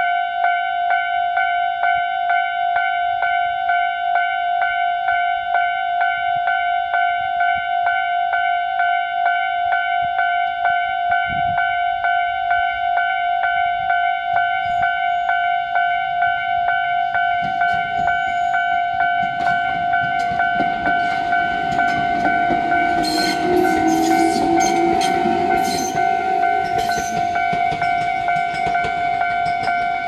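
Japanese level-crossing alarm bell ringing steadily in rapid repeated dings. In the second half a Tobu electric train approaches and passes close by, its wheels clattering over the points and rail joints, loudest about two-thirds of the way in.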